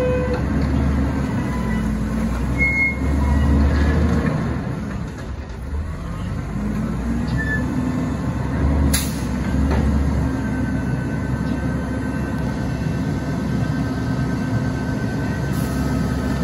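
Autocar ACX front-load garbage truck's engine running with its hydraulics working as the forks lift the Curotto-Can over the cab to dump it into the hopper and lower it again. A faint whine rides over the rumble, and a single sharp bang comes about nine seconds in.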